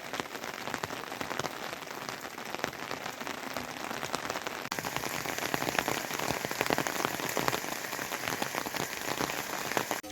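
Steady rain falling, with many separate drops striking a nearby surface in a dense crackle.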